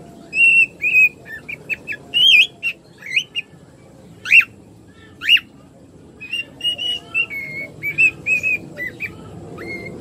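Cockatiel whistling its song: a string of short whistled notes, with two sharp rising-then-falling whistles near the middle and a quick run of short, level notes in the second half.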